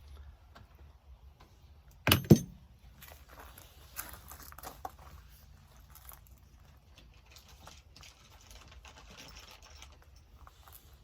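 Tools and small metal parts being handled: two loud knocks close together about two seconds in, then scattered faint clicks and rustling.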